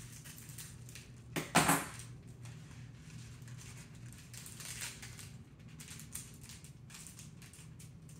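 Crinkling and rustling of a foil chip pouch being handled and pulled open, with one louder double crackle about a second and a half in.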